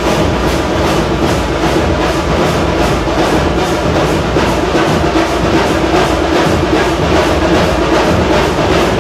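Loud, percussion-led festival music: drums beating steadily about three times a second over a sustained held tone.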